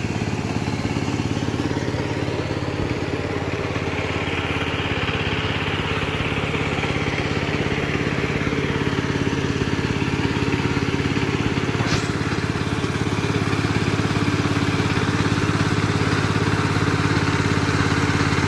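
Engine of a two-wheel walking tractor (power tiller) running steadily while it tills a flooded paddy field, with one sharp click about two-thirds of the way through.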